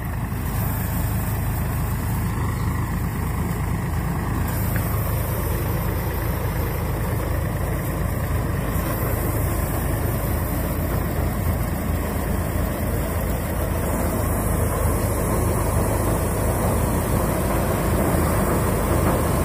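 Tractor engine running steadily under load, driving a paddy thresher as rice sheaves are fed into its drum. A continuous low drone with a dense rushing noise over it.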